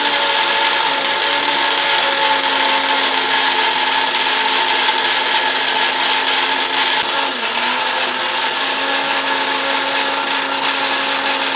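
Electric mixer grinder running steadily, grinding spinach leaves into a paste. Its whine dips briefly about seven seconds in, then recovers.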